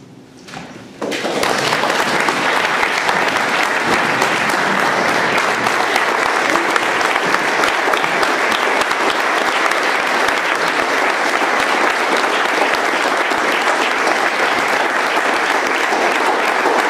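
Audience applauding: many people clapping steadily, beginning suddenly about a second in.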